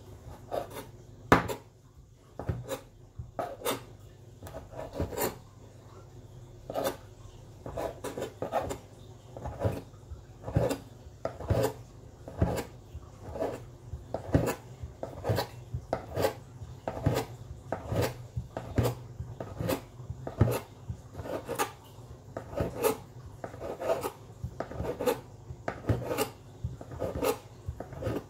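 Kitchen knife cutting a folded sheet of fresh noodle dough into strips on a hard countertop: a steady series of knocks as the blade goes through the dough onto the surface, a little faster than one a second.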